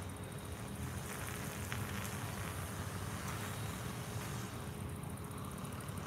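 Steady outdoor background noise: a low rumble of distant road traffic, with a faint high buzz over it.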